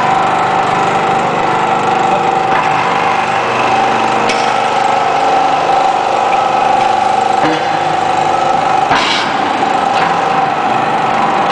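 Hydraulic power unit of a Y81-130 scrap metal baling press running with a steady whine while its hydraulic cylinder drives the lid closed over the press box. A few short knocks come through, the loudest about nine seconds in.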